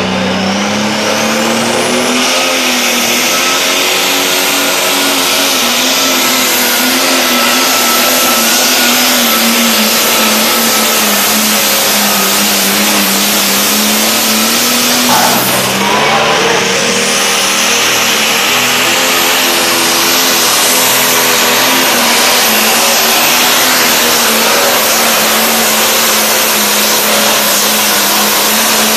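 Pro Stock pulling tractors' turbocharged diesel engines running at high revs under full load while dragging the pulling sled, loud and continuous, the pitch wavering slowly up and down. About halfway through there is a short break, and then a second tractor's engine carries on with the same sound.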